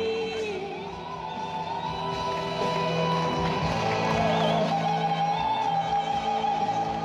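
A male singer's high falsetto 'dolphin voice' vocalise over backing music: a long held high note, a brief wavering run about four seconds in, then another long held note slightly lower.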